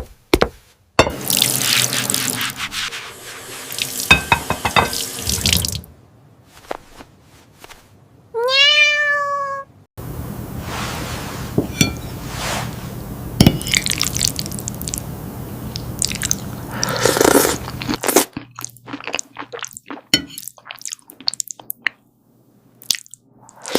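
A cat crunching and chewing a cookie, with long stretches of steady hissing noise. About eight and a half seconds in there is a single meow that rises and then levels off. Near the end come quick, sharp crunching clicks.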